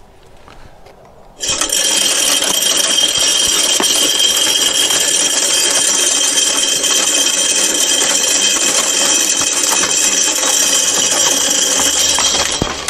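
Deer feeder's battery-powered spinner motor in an Academy control box switching on about a second and a half in on a timer test, running with a steady whine as it flings corn that rattles off the feeder's metal, then cutting off near the end.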